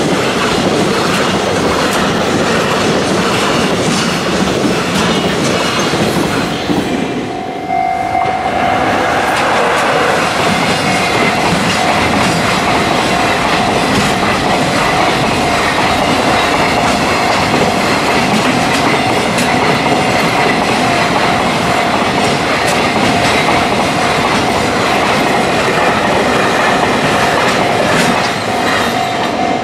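Freight train of container wagons rolling past at speed, the wheels clattering over the rail joints in a steady run of clicks. About seven seconds in the sound cuts to another container freight train passing in the same way, now with a steady high tone ringing over the clatter.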